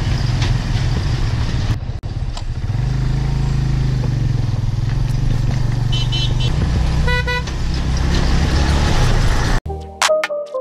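Suzuki GS150 single-cylinder motorcycle engine running steadily on a rough gravel track, with wind rumble on the microphone. A horn honks once, briefly, about seven seconds in. Just before the end the sound cuts to background music.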